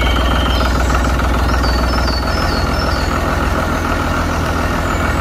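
Tractor engine idling steadily with an even, low hum.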